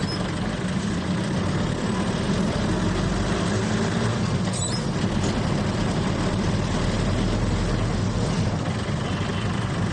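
Cabin of a very old vehicle on the move: the engine and road noise run steadily, with one short sharp click about halfway through.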